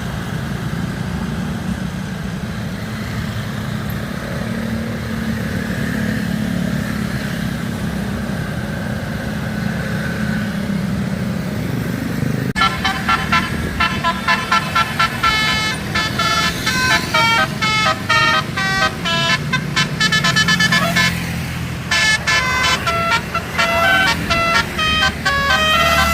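A bus engine rumbles with passing traffic, then about halfway through a Basuri 'telolet' multi-tone bus horn plays a quick tune of short stepped notes. It breaks off briefly and starts up again near the end.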